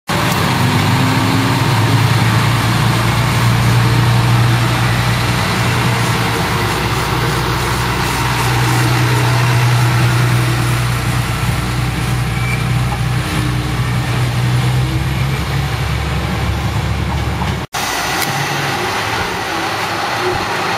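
Hitachinaka Seaside Railway KiHa 37100 diesel railcar's engine idling with a steady deep hum. After a sudden cut near the end, a quieter rumble continues.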